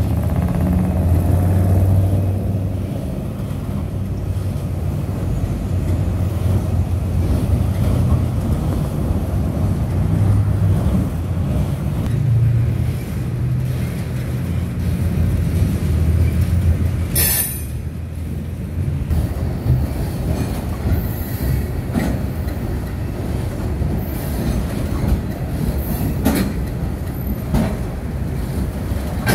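Freight train cars rolling over a steel railroad bridge: a steady low rumble of wheels on rail. There is a brief high-pitched burst a little past halfway, and a few sharp clicks from the wheels near the end.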